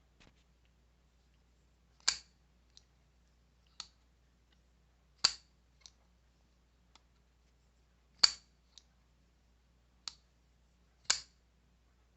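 A folding pocketknife being flicked open and shut. There are four sharp snaps about three seconds apart as the blade swings out and locks, with fainter clicks between them.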